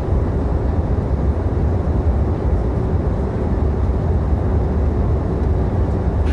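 Passenger airliner cabin in flight: a steady, dense low rumble of engines and airflow, with a faint steady hum running through it.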